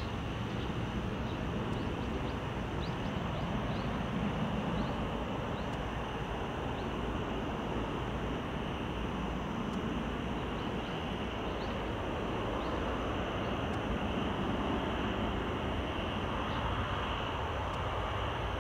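Boeing 787-8 Dreamliner's turbofan engines on final approach: a steady jet rush and rumble that swells slightly toward the end as the airliner draws closer.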